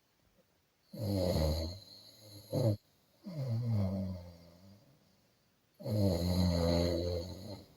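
Snoring: two long snores about five seconds apart, with a shorter snore falling in pitch between them.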